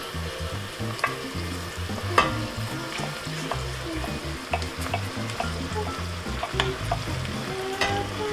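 Onions, garlic and spices frying in hot oil in a pot while being stirred, with a steady sizzle and a utensil knocking against the pot now and then, the loudest knock about two seconds in. The spices are being cooked to release their flavour.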